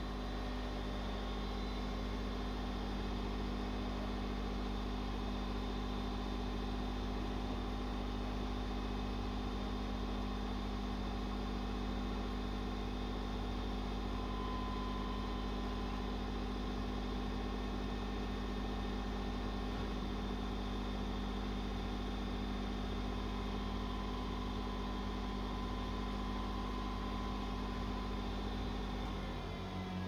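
Electric pepper-grinding mill running with a steady, even hum as it grinds dried red peppers into powder.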